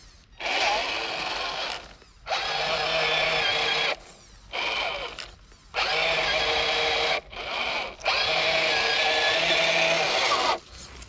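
Electric motor and gearbox of a Tamiya High-Lift F-350 RC scale crawler whining in six throttle bursts, each half a second to two and a half seconds long, stopping and starting with short gaps as the truck crawls over rough ground.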